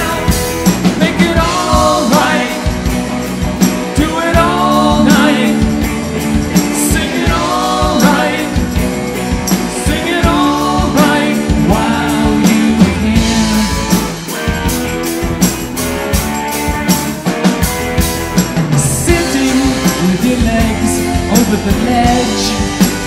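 Live rock band playing an instrumental break: electric guitars, electric bass and a drum kit, with a lead guitar line that bends up and down in pitch.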